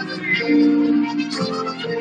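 Gospel worship music playing, with held notes layered over one another.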